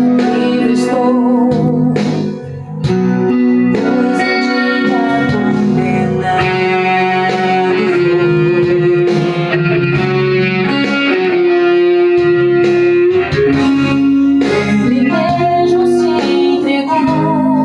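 Electric guitar played through effects, improvised along with a recording of a worship song.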